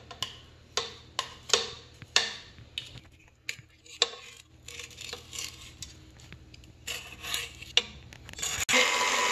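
A spatula scrapes and taps around a stainless steel mixing bowl in a series of short, separate strokes as creamed butter and sugar are scraped down the sides. About eight and a half seconds in, a KitchenAid stand mixer switches on and runs steadily.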